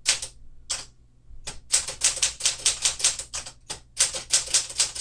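Keystrokes on a 1952 Smith-Corona Clipper manual typewriter, its typebars striking the platen as sharp clacks. A few come spaced out at first, then fast runs of typing follow.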